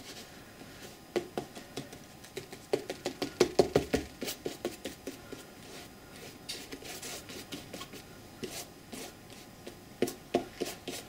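Paintbrush dabbing and brushing tea stain onto a stretched canvas: irregular sharp taps and scratchy strokes in clusters, busiest a few seconds in.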